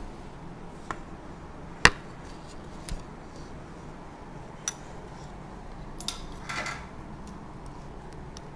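Wooden clothes hangers clacking against each other and the metal rail as garments are carried over and hung up: a few sharp separate clicks, the loudest about two seconds in, and a brief rustle of fabric a little after six seconds.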